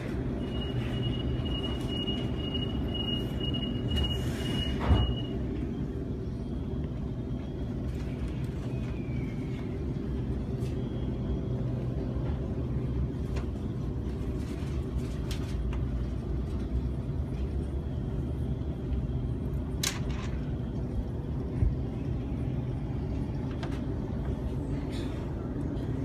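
Inside a Sydney Trains Waratah A-set electric train: a steady high tone sounds for about five seconds and ends with a thump, then the carriage's steady running rumble as the train pulls out and runs on, with a couple of brief clicks near the end.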